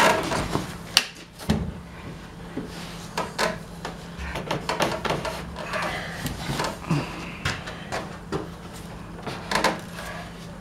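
Wooden shelf board being worked into a tight-fitting pallet-wood cabinet frame: irregular wooden knocks, taps and scraping, with a steady low hum beneath.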